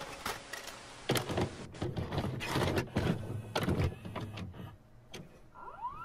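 VHS tape player sound effect: a run of irregular mechanical clunks and clicks as a cassette is loaded, then a short rising tone near the end as playback starts.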